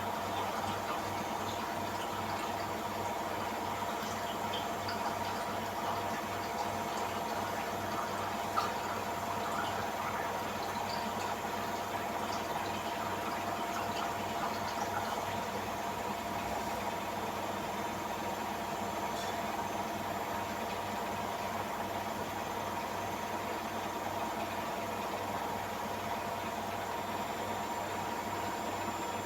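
Samsung AddWash WW70K5410WW washing machine running steadily in its spin and drain cycle: an even machine hum with two held tones, and water running through.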